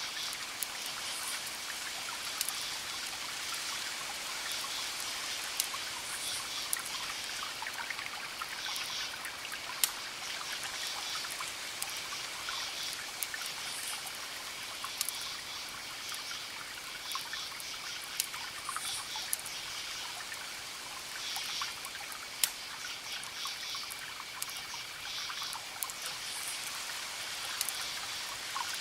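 Wood fire crackling, with sharp pops every second or two, over a steady trickle of water.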